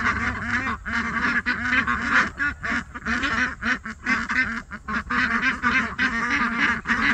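A flock of young domestic ducks quacking continuously, many calls overlapping.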